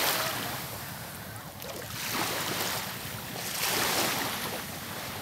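Sea waves washing onto a beach: an even surf noise that swells and fades every couple of seconds, with some wind on the microphone.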